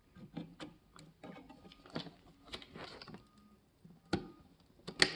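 Scattered light clicks and taps, irregularly spaced, from a second RAM stick being handled and pushed into its motherboard slot.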